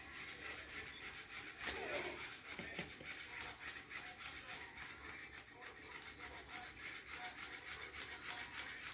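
Cat gnawing and clawing at a fabric fish cat toy on carpet: faint scratchy rubbing with many small clicks.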